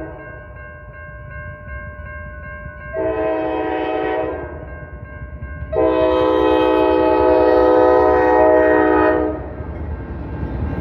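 Multi-chime diesel locomotive horn sounding a short blast about three seconds in, then a long blast of about three and a half seconds, finishing the grade-crossing signal, over the crossing bell ringing. Near the end the light engine move, locomotives only, rumbles across the crossing.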